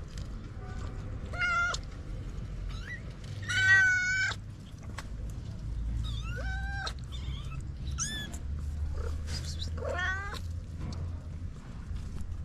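Kitten meowing about five times in high, drawn-out cries, the loudest and longest about four seconds in.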